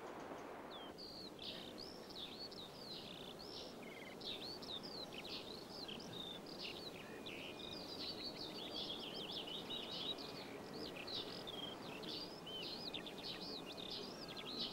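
Several songbirds chirping and singing in quick overlapping phrases, starting about a second in, over a faint steady outdoor background hiss.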